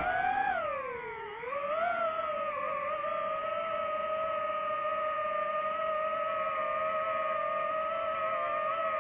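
DJI FPV drone's motors and propellers whining as it lifts off: the pitch climbs, dips about a second in, rises again, then holds a steady whine with slight wavering as the drone flies.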